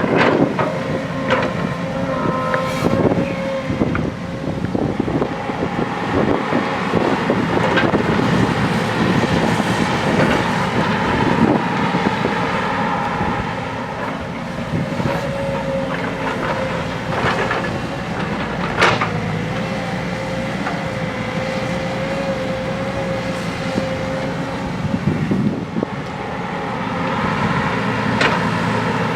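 JCB backhoe loader's diesel engine working under load, with a wavering whine that comes and goes and scattered clanks and knocks as the machine digs into the hillside.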